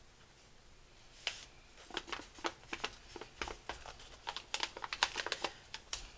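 Hands pressing and smoothing felt around a cardboard Pringles can, making crisp crinkly rustles and clicks that start about a second in and come thick and fast from about two seconds in.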